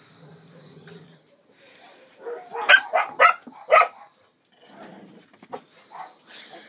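Small dogs play-fighting: a low growl, then four sharp yapping barks in quick succession about halfway through, followed by softer grumbles and scuffling.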